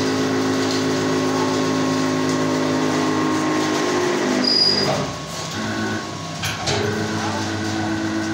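Hydraulic baling press running: its pump motor hums steadily. About five seconds in the hum drops away for a moment, a few sharp clicks follow, and the hum comes back at a slightly different pitch as the ram moves.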